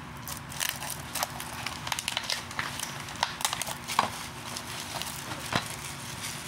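Shrink wrap being picked at and torn off a sealed plastic DVD case: a run of irregular crinkles and clicks, with sharper clicks about four seconds in and again about five and a half seconds in.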